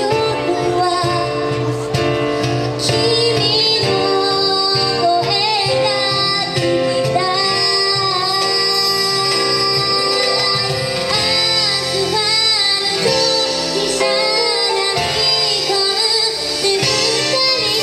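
A female singer sings a slow ballad live, backed by a band of keyboard, acoustic guitar, bass and percussion.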